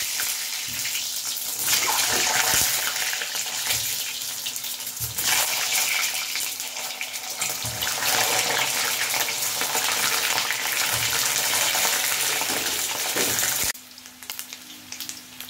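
Hot oil sizzling and crackling around whole boiled eggs frying in a kadhai, a steady loud hiss that cuts off suddenly near the end.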